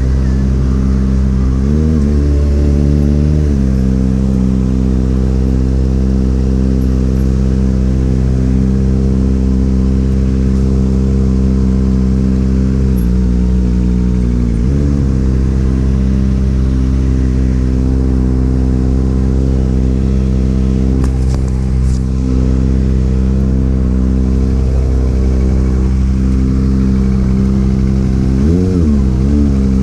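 Motorcycle engine running steadily at cruising speed, its pitch briefly dropping and climbing back several times: around a second in, again a few seconds later, twice in the middle, and near the end.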